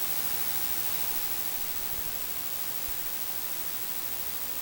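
Steady hiss of static, even and unchanging, with a faint thin tone beneath it.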